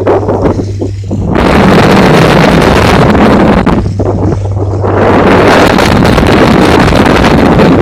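Strong wind buffeting the microphone, easing briefly twice, over the steady low hum of a tugboat's engine.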